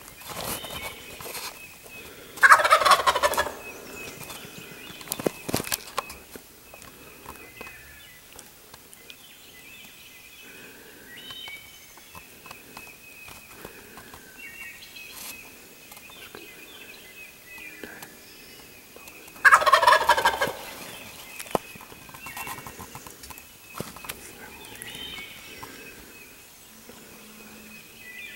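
A wild turkey gobbler gobbling loudly from its roost tree overhead, twice: a rattling gobble about two and a half seconds in and another about twenty seconds in. Songbirds chirp faintly between the gobbles.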